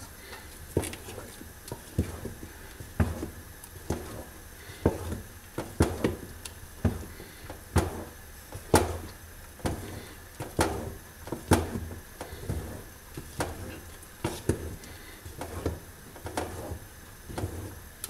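Wooden spoon stirring a thick paste of ground sesame and hazelnuts in an aluminium pot, knocking against the pot about once a second with a low scraping between strokes.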